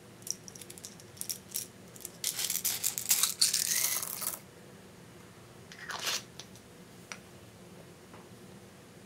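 Small plastic pot of tiny coloured beads handled with a few light plastic clicks, then shaken so the beads rattle out and patter onto the slime for about two seconds. A shorter rattle follows about six seconds in.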